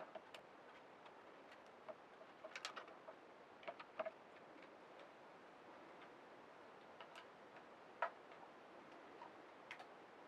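Scattered small plastic clicks and taps from a servo-lead connector being handled and pushed into a port on a Meccano Mecca-Brain 3.0 module, over near silence; the sharpest click comes about eight seconds in.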